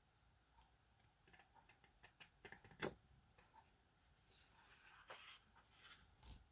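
Faint clicks, taps and rustling as a printed replacement gauge dial is handled, slid over an old metal dial and pressed flat on a board, with one sharper click about three seconds in.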